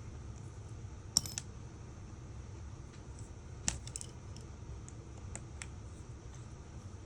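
Small metallic clicks and clinks from repair tools and parts while an iPhone 5 is being taken apart: a sharp cluster of clicks about a second in, another sharp click past the middle, then a few lighter ticks, over a low steady hum.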